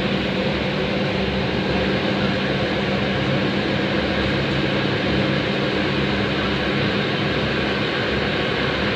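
Freight train of open wagons rolling past close by: a steady rumble of wheels on the rails with a low hum underneath that fades near the end, heard through a window pane.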